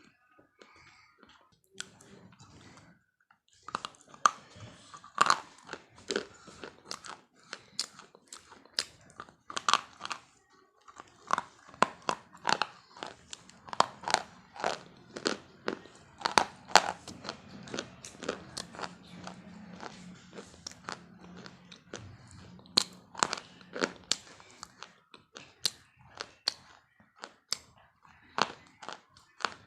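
Crunchy food being chewed close to the microphone, sharp irregular crunches several times a second after a quieter start.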